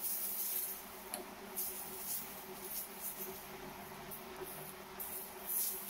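Metal ladle spreading besan dosa batter over a hot iron dosa tawa: soft, irregular scraping swishes, a stroke or two a second, over a faint steady hum.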